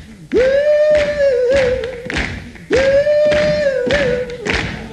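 A man singing two long held notes, each wavering and dropping at its end, over sharply strummed mandolin chords and percussive thumps.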